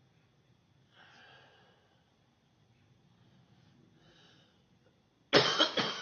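Faint breathing, then a loud fit of coughing about five seconds in: three quick coughs in a row. It is a person's bad morning cough.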